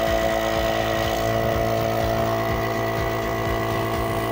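Nebuliser's electric piston compressor running with a steady hum but pushing no air from its outlet: the rubber valve flap on top of the piston is fitted upside down.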